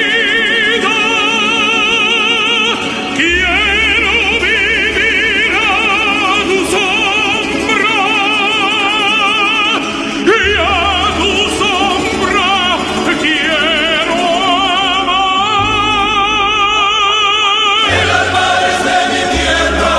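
Music: operatic singing, long held notes with a wide vibrato.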